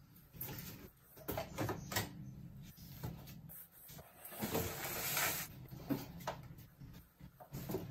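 Clothes and household items being handled: a scatter of light clicks and knocks, with a longer rustle of fabric from about four to five and a half seconds in.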